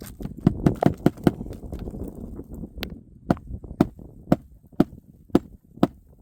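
Hand hammer driving roofing nails into asphalt shingles: a quick run of light taps, then steady single blows about two a second.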